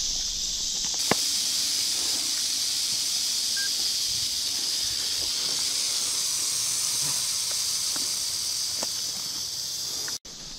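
Timber rattlesnake rattling: a steady, dry, hissing buzz that swells about a second in and holds unbroken, then cuts off suddenly just before the end.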